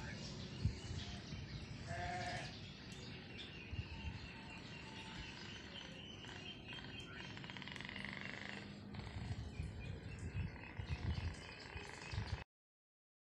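A goat bleats once about two seconds in, short and faint, over faint outdoor background noise. A fainter call follows near eight seconds, and the sound cuts to silence just before the end.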